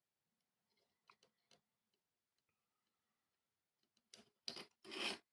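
Faint small clicks and taps from handling tools and parts at a soldering bench, then three short, louder scratchy noises near the end.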